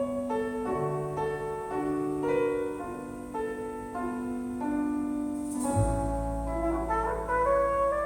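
Instrumental piano passage from a recorded ballad, played back through KEF LS50 Meta bookshelf speakers and picked up by a phone microphone. Single piano notes ring out, and about six seconds in a low bass note comes in and fuller accompaniment joins.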